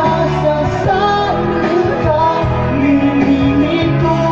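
Live amplified music: two men singing into microphones over electronic keyboard accompaniment with a steady beat.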